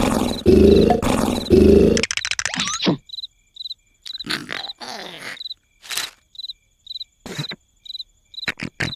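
Cartoon snoring: loud, rasping snores about once a second that stop about two seconds in. After that come cricket chirps repeating steadily, with a few short scattered sound effects.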